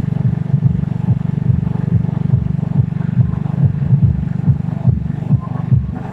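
Motorcycle engine running steadily as it is ridden, a low hum with irregular short thumps.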